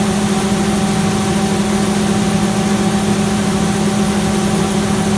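An engine running at a steady speed, with a constant low hum and a few higher steady tones over a broad rush of noise.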